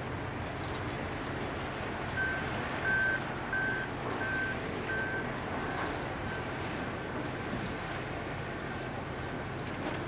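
A vehicle's reversing alarm beeping at one pitch, about three beeps every two seconds, over the steady low rumble of engines. The beeps start about two seconds in and grow faint after the first five.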